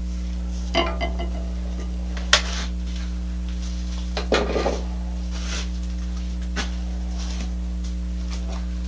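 Steady electrical hum with a few scattered light knocks and clinks from hand handling. The sharpest is a click about two and a half seconds in, and there is a short clatter a little after four seconds.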